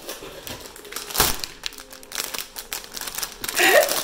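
Gift packaging being handled and unwrapped: a run of crinkles and rustles, with one louder crinkle about a second in.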